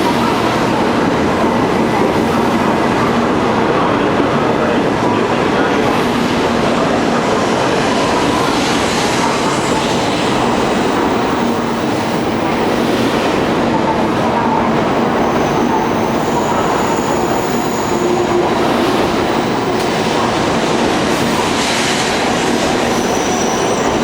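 A 700 series Shinkansen bullet train running with a steady, loud rumble of wheels on rail. Thin high-pitched squeals come in briefly in the second half.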